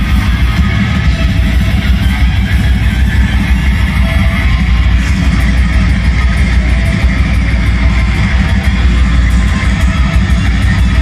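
Icelandic black metal band playing live: heavily distorted electric guitars and bass in a dense, loud instrumental passage, heard from the crowd.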